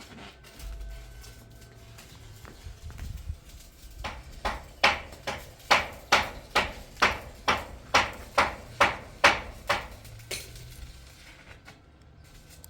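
Hammer striking, probably on metal work in a workshop: an even run of about fourteen blows, roughly two and a half a second, starting about four seconds in and stopping near ten seconds.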